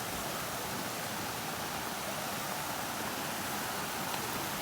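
Steady rushing of fast-flowing water, a river or waterfall, as an even hiss with no breaks.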